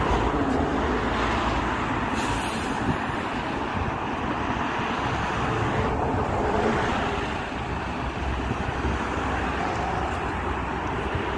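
Steady road traffic noise from vehicles passing on the road.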